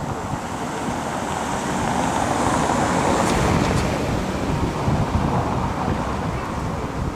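Wind buffeting the microphone: a rushing noise that swells over a few seconds and then eases.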